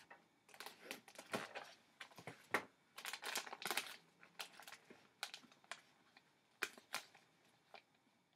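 Thin clear plastic deli-meat tub being handled: its snap-on lid pried off and turkey slices pulled out, giving a run of crinkles and clicks that thin out over the last few seconds.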